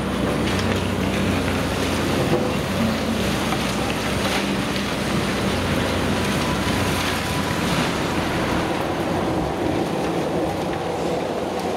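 Caterpillar 330D long-reach demolition excavator's diesel engine running steadily under hydraulic load as its crusher breaks up concrete slabs, with chunks of rubble knocking and clattering down.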